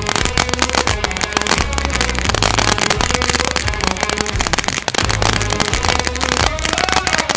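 A ground fountain firework spraying and crackling, mixed with music that has a deep bassline changing notes every second or two.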